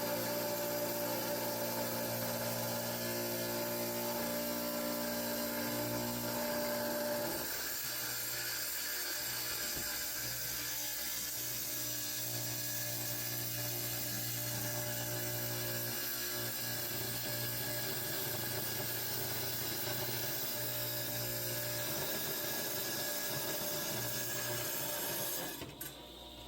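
Tile saw blade grinding through hard rock. For the first several seconds it is a steady hum with a few held tones, then a rougher grinding, and the sound drops away shortly before the end.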